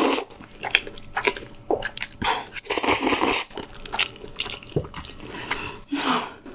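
Slurping up creamy rosé pasta noodles, then close-miked wet chewing with small sticky clicks of the mouth, and longer noisy slurping sounds about two and a half seconds in and again near the end.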